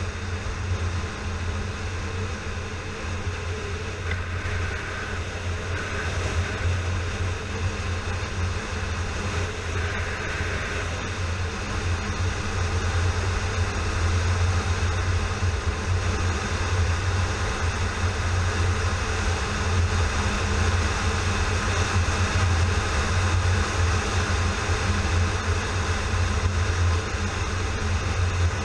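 Yamaha FZ6R motorcycle's 600 cc inline-four engine running at a steady cruise, mixed with wind and road noise. It gets a little louder about halfway through.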